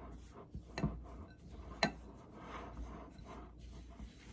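Spatula scraping and stirring a thick peanut-butter and wheat-germ mixture in a glass mixing bowl, with a few light taps against the glass, the sharpest about two seconds in.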